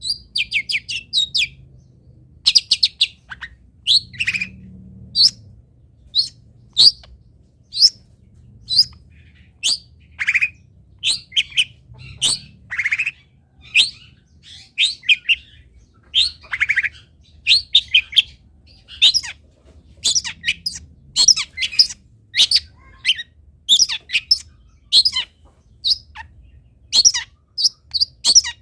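Long-tailed shrike (cendet) singing a rapid run of short, sharp chirping phrases, one every half second to a second, mixed with some lower rasping notes.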